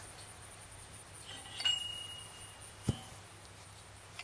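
Metal clink of pipe wrenches on galvanized steel pipe, ringing briefly with a single high tone, followed about a second later by a sharp knock.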